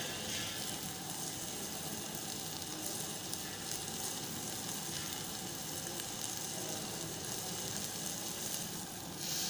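Chopped tomatoes with onion, garlic and ginger sizzling steadily in a stainless-steel saucepan on a gas burner as the tomatoes soften, with a brief louder hiss near the end.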